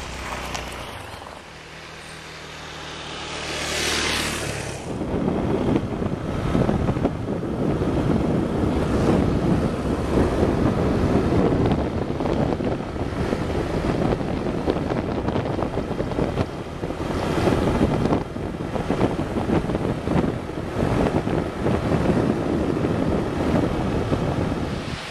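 Small motor scooter engine running with a steady hum as it rides past, fading after a few seconds. Then strong wind buffets the microphone, over surf breaking on the beach.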